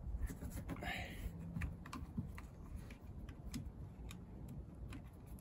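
Light, irregular plastic clicks and taps as a replacement tow-bar trailer socket is handled and fastened with a small nut, with a brief rustling scrape about a second in.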